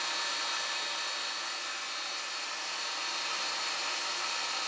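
Jet pump on a sand-point well running steadily while it builds water pressure toward the pressure switch's 40 PSI cutoff.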